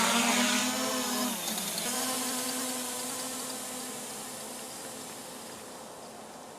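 A small camera drone's propellers buzz as it lifts off. The pitch shifts about a second and a half in, then the buzz fades steadily as the drone flies away.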